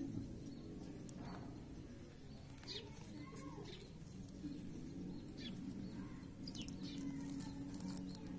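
Birds chirping in short, high, falling notes at scattered moments, over a steady low hum.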